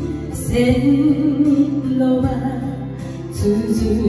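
A woman sings an enka song into a handheld microphone over a karaoke backing track, holding long notes.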